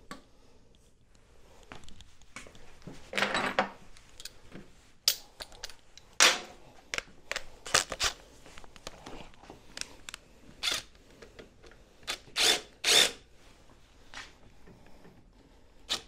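Cordless drill-driver running in several short bursts as it tightens the rear brake adjustment screw on a scooter's rear drum brake, with a few sharp clinks of metal tools between the bursts.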